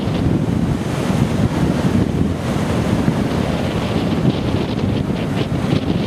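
Rough storm surf breaking and washing up a beach, with strong wind buffeting the microphone in a steady low rumble.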